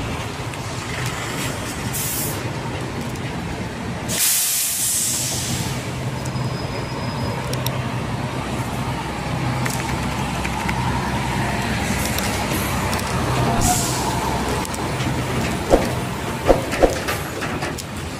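Heavy truck engines running, with a loud burst of air-brake hiss about four seconds in and shorter hisses later. Three sharp knocks near the end.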